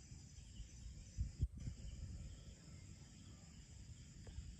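Night insects, crickets, chirping steadily in a high-pitched chorus. A couple of short low thumps come about a second and a half in.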